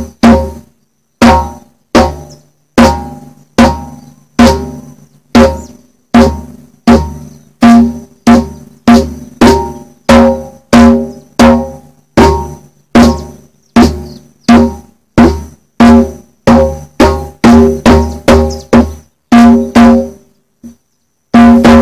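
Conga drum struck by hand in slap-stroke practice: single strokes at an even, slow pace of about one a second, each ringing briefly. Late on the strokes come closer together, stop for about a second, and a fast run of strokes begins just before the end.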